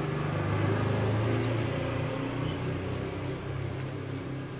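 A motor engine running steadily with a low hum that slowly fades.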